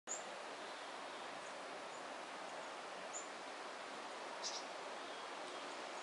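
Quiet outdoor ambience: a steady background hiss with a few faint, brief high bird chirps scattered through it.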